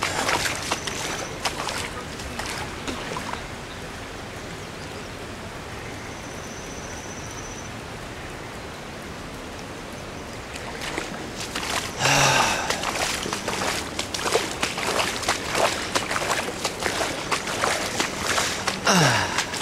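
Floodwater rushing in a steady roar, with irregular knocks and crackles over the first few seconds and again through the last several seconds.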